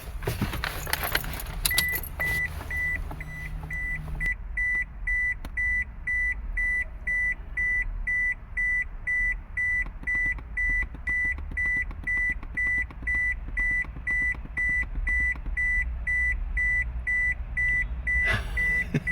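An electronic beep at one high pitch repeating steadily about twice a second, over a steady low rumble. Clattering and rattling in the first few seconds.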